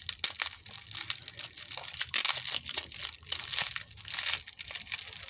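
Bubble wrap and crinkle-cut paper shred crinkling and rustling as a wrapped crystal is handled and lifted out of a packing box, in irregular crackly bursts.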